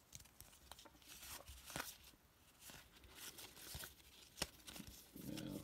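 Faint rustling and light clicks of cardboard trading cards being handled and sorted by hand, with one sharper card click near the end.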